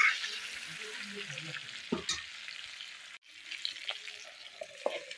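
Pork and elephant apple pieces sizzling in hot oil in an iron kadai, stirred with a metal spatula that knocks against the pan a few times.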